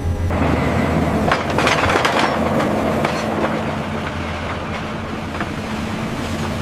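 A rail vehicle running on the track, a rumbling noise with metallic clatter, busiest about one to two seconds in.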